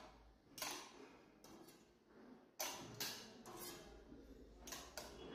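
Several short, sharp scrapes and clicks, spaced irregularly, as kitchen knives are handled at a wall-mounted magnetic knife strip.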